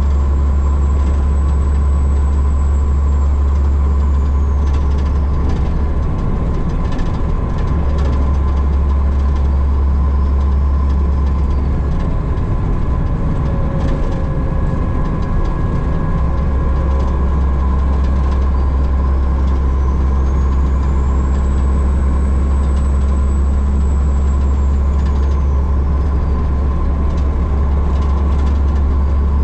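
Diesel engine of a loaded log truck pulling a pup trailer, running steadily at road speed, heard from inside the cab as a loud low drone with road noise. A faint high whine rises and fades away twice.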